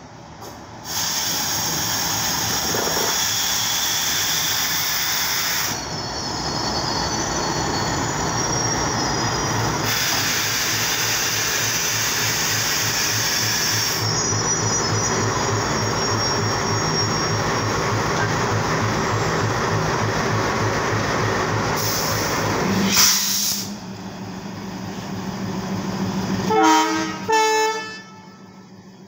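WDG3A ALCO-type diesel locomotive and its coaches rolling slowly past, with wheel and rail noise and high-pitched wheel squeal at times. The engine runs with a steady low hum. Near the end come two short blasts of the locomotive horn.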